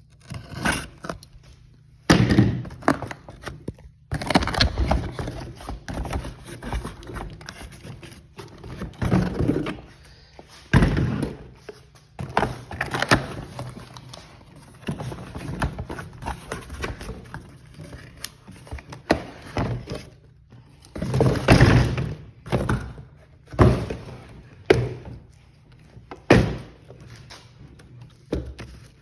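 Irregular thunks, knocks and rustling from unpacking: boxes being opened and Cobra 18M firing modules handled and set down.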